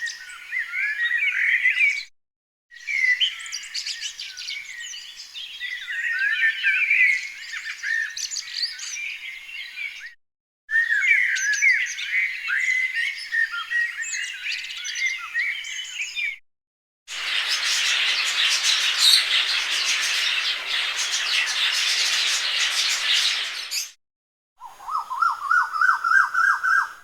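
A string of separate bird sound-effect clips with short silent gaps between them. For about the first sixteen seconds small birds chirp and twitter in quick high notes. Then comes a dense, noisy flock chorus of about seven seconds, and near the end a short run of repeated notes that climb in pitch.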